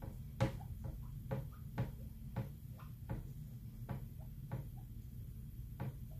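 Light, sharp taps and clicks of a hand tool on a work surface, about a dozen at an uneven pace of roughly two a second, over a low steady hum.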